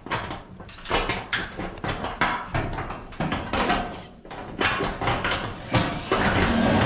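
Irregular knocks and clattering over a steady hiss, becoming louder and more continuous near the end.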